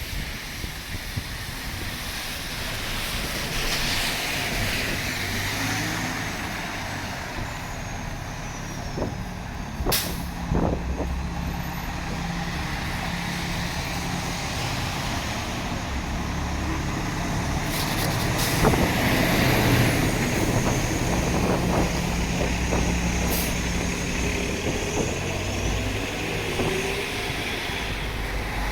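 Downtown street traffic: a heavy vehicle's engine running close by over steady road noise, with louder hissing about two-thirds of the way through and one sharp click about a third in.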